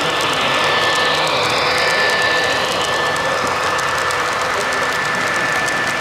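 HO scale model train of tank cars rolling past on the layout track: a steady whirring rush of wheels on rails with a thin steady whine and fine ticking, a little louder in the first couple of seconds.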